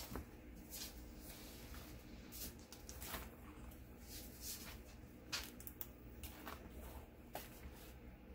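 Faint rustling and light ticks of paper sticker sheets being handled and leafed through, coming in scattered short bursts.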